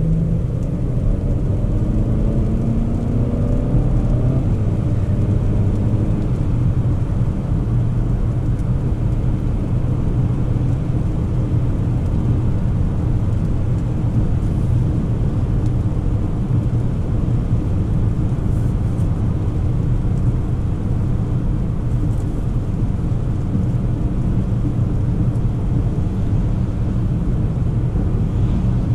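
Cabin sound of a 2024 Volvo XC40 B3 driving on a wet road: a steady low engine and road rumble with tyre noise. The engine note rises as the car accelerates over the first few seconds.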